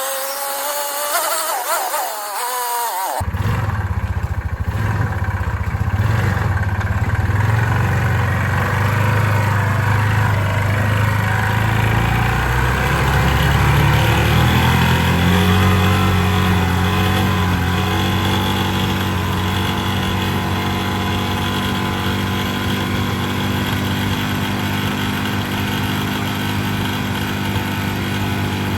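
Yamaha Rhino 450 single-cylinder four-stroke engine running steadily under way, its note rising a little about halfway through and then holding. The owner hears a rough low-end knock in this engine and suspects it may be cooked. The first three seconds hold a different sound with a wavering pitch that cuts off suddenly.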